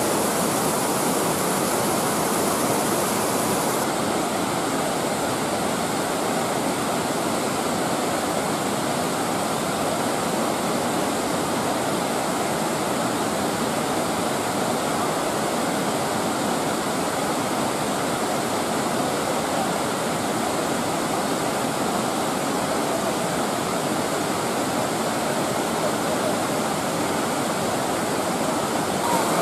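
Steady rush of water pouring over the rock ledges of a tiered waterfall and its stream cascades.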